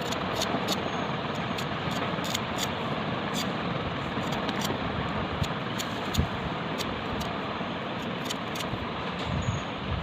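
Oil sizzling in a cooking pan: a steady hiss with frequent sharp crackles.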